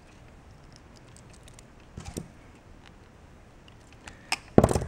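Hand crimping pliers squeezing insulated butt connectors onto car stereo speaker wires, with small plastic clicks from handling the connectors. Two light clicks come about two seconds in, and the loudest crunch, the crimp closing, comes near the end.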